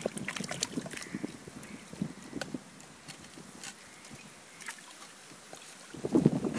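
Hands scooping and squelching in wet mud and shallow water, with scattered short clicks and rustles. A louder bout of sloshing comes near the end.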